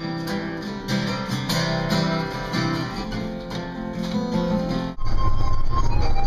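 Guitar-led music, strummed guitar chords with other pitched notes, that cuts off abruptly about five seconds in to a louder low rumble.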